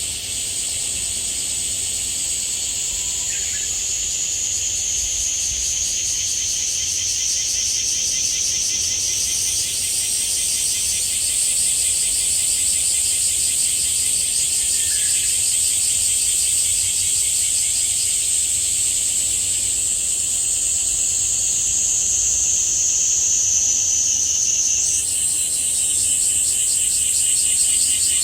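Cicadas shrilling in a dense, continuous chorus whose main pitch slides slowly downward and jumps back up twice. A bird calls faintly and briefly three times.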